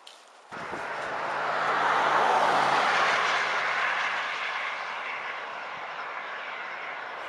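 A motor vehicle going by: engine and tyre noise starts abruptly, swells to its loudest about two seconds in, then slowly fades.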